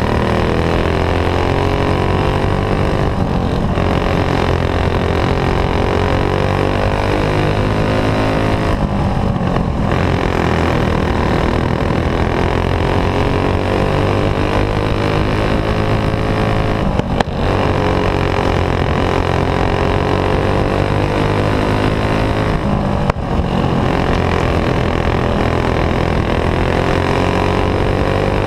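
Single-cylinder clone four-stroke kart engine running hard on board. Its pitch sags and climbs again every six to eight seconds as the kart goes through the turns, with two brief sharp clicks in the second half.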